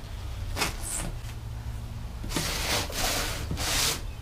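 A knife blade slitting the packing tape along the seam of a cardboard box: two short strokes, then longer scraping cuts in the second half.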